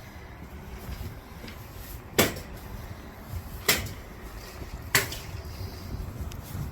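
Three sharp knocks, each over a second apart, the first the loudest, over a steady low rumble.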